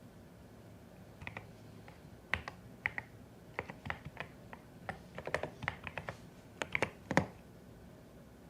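Keystrokes on a CIDOO ABM081 Stellar mechanical keyboard: uneven typing in short bursts that starts about a second in and stops near the end, with the loudest key strikes just before it stops.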